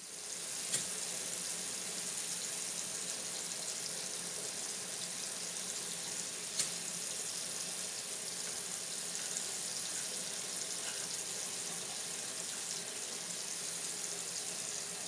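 Kitchen faucet running a steady stream of water into a stainless steel sink, a continuous splashing hiss. Two brief sharp clicks stand out, about a second in and again about halfway through.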